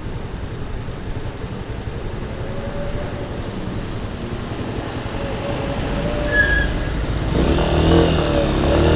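Motorcycle engine running at idle with a steady low rumble, then revving up about seven and a half seconds in as the bike pulls away.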